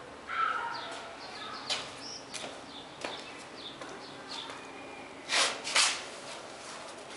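Small birds chirping faintly in short, falling notes that repeat, with two brief noisy bursts close together about five and a half seconds in.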